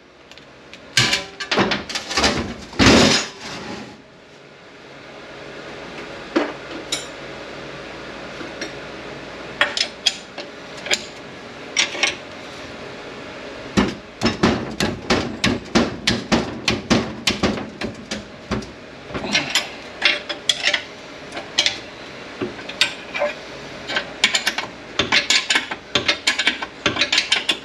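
Hand tools working on a manual transmission's metal case: a few loud metal knocks in the first few seconds, then a long run of irregular sharp clicks and taps, two or three a second.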